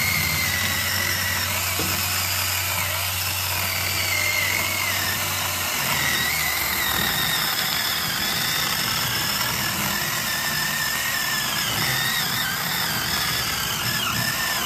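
Cordless 8-inch ZEEKSAW electric mini chainsaw cutting through a thick log of heavy oak. The motor and chain whine steadily and waver a little in pitch without bogging down.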